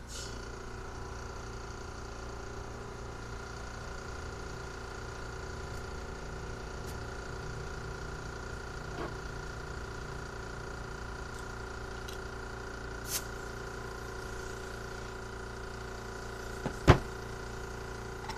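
Air compressor motor running with a steady hum, supplying the blow gun used to clean a carburetor. A single sharp clack comes near the end.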